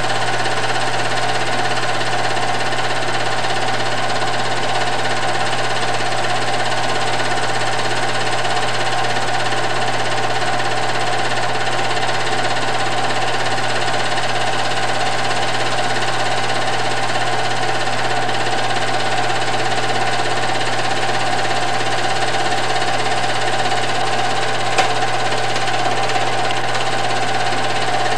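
Film projector running: a steady whir and clatter of its motor and mechanism, with one sharp click a few seconds before the end.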